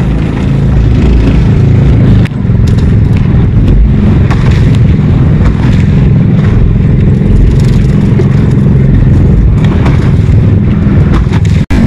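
Small boat engine running steadily, a loud low rumble with scattered clicks and knocks over it.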